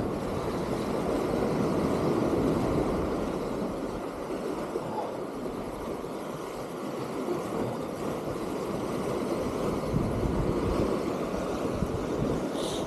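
Sea waves washing and breaking against the concrete tetrapods of a breakwater: a steady rushing noise that swells and eases.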